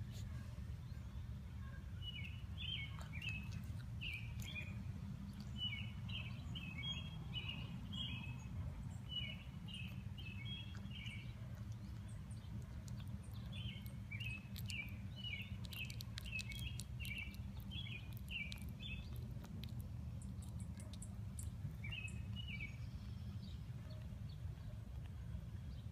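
Short, high chirps repeated in quick clusters over a steady low hum.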